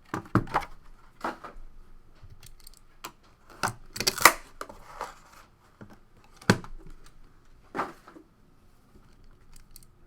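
Packaging being torn open and handled as a sealed trading card box is opened: a series of separate sharp tearing, crinkling and snapping sounds with short pauses between them.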